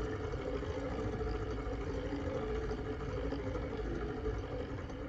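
White Peerless VS1 vintage sewing machine running steadily while its friction-driven bobbin winder, pressed against the hand wheel, winds thread onto the bobbin. It makes an even, unbroken mechanical running sound.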